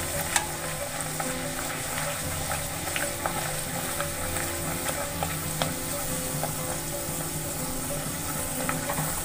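A puri deep-frying in very hot oil in a steel kadhai, sizzling steadily while a perforated steel skimmer presses it down to make it puff, with a few light clicks scattered through.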